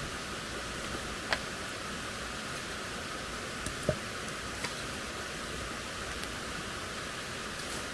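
Steady rushing of a forest stream, with a few light clicks scattered through it.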